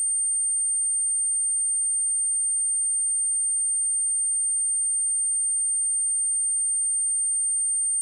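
A steady, high-pitched 8772 Hz sine wave test tone: one pure pitch held unchanged, used as a speaker test and speaker-cleaning tone.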